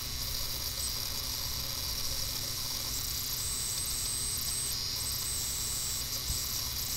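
Steady background hiss with a low hum underneath: room tone picked up by the recording microphone. A faint high whine joins it for about a second a little past the middle.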